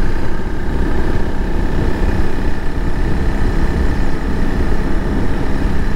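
Honda CRF300 Rally's single-cylinder four-stroke engine running steadily through its stock exhaust at part throttle, the bike held at about 30 mph in fourth gear. Wind and road noise rumble over the microphone.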